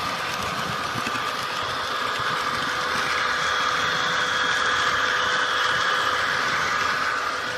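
HO-scale model train running along the track: a steady small-motor whine with wheel-on-rail noise, swelling a little toward the middle.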